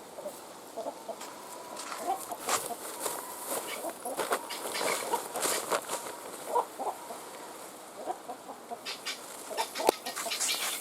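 Hen clucking in short, irregular calls, with scattered clicks and rustling.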